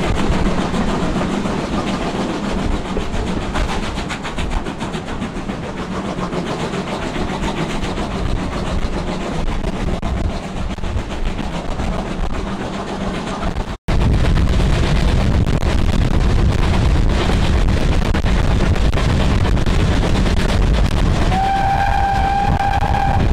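A steam-hauled train running: steady wheel and track rumble from the BR Standard Class 2 locomotive 78022 and its carriages. After a brief break about halfway the rumble is louder. Near the end the locomotive gives one steady whistle of about two seconds.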